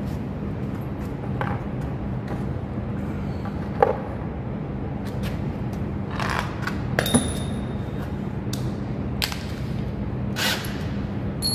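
Scattered clicks and metallic clinks of hand tools and screwdriver bits being handled, a couple of them ringing briefly, over a steady low hum; the sharpest click comes about four seconds in.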